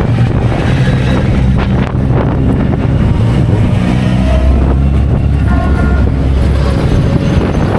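Historic racing car engines running loud, their pitch shifting, with a deep low drone setting in about four seconds in.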